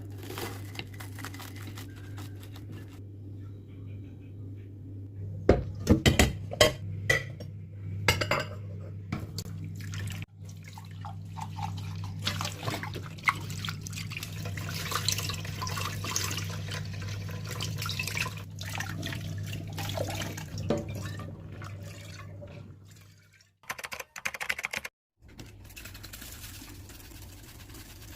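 Water running and dripping, with scattered knocks and clinks of handled objects over a steady low hum.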